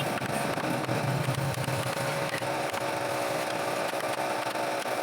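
Wood lathe running steadily with a constant hum, a louder low rumble through the first couple of seconds.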